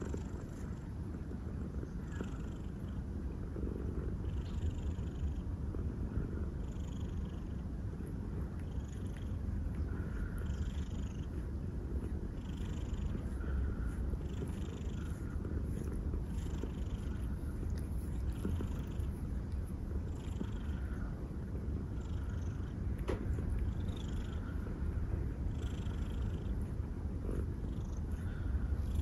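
Domestic cat purring steadily close by, a continuous low rumble with a soft rasping swell about once a second as the cat breathes in and out.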